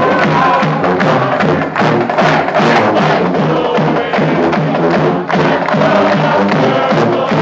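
Marching band playing live at full volume, with a driving drum beat under the melody.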